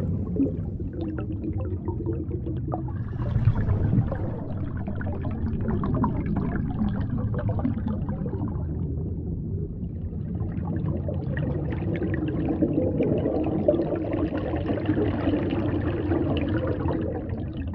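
Underwater ambience picked up by a submerged camera: a muffled, steady low rush of water with faint scattered crackling.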